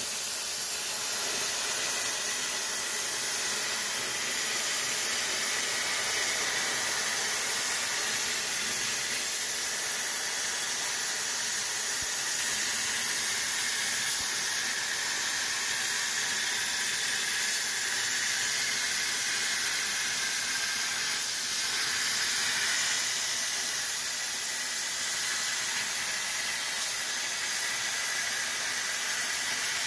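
CNC gantry plasma cutter cutting sheet metal: the plasma arc and its compressed-air jet make a loud, steady hiss throughout.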